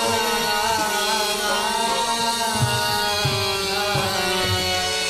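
Qawwali music: voices holding a long, wavering sung note over a steady harmonium-like drone, with a few low hand-drum strokes.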